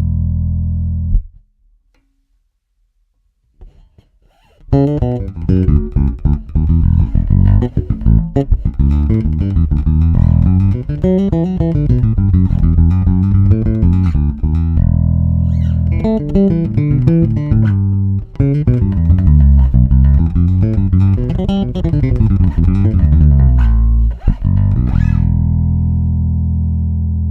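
Warwick Rockbass Fortress four-string electric bass guitar played solo: a held note that stops about a second in, a pause of about three seconds, then a busy run of plucked notes with one held note midway, ending on a long ringing note.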